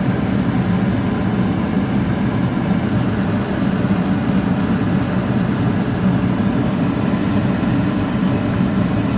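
A small Nissan car running: a steady low rumble that holds even throughout.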